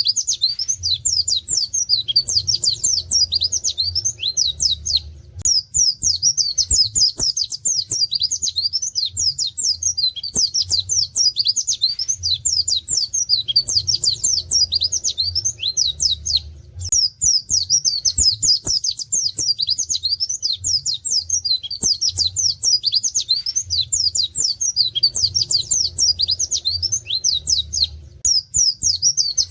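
A white-eye (pleci) singing a fast, unbroken stream of high twittering chirps, with canary-like 'wit wit' bursts. The song breaks off briefly three times.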